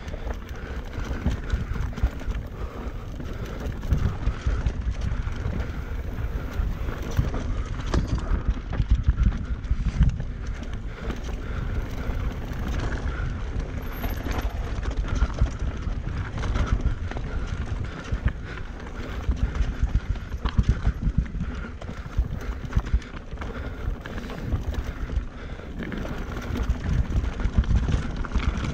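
Mountain bike descending a rough enduro trail at speed: a dense, continuous clatter of chain, frame and tyres over roots and rocks, with wind rumbling on the microphone.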